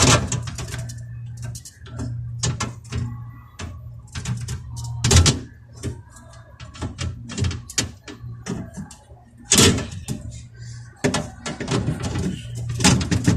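Repeated knocks and clatters of a side-by-side refrigerator's doors and fittings being opened, shut and handled, over a steady low hum.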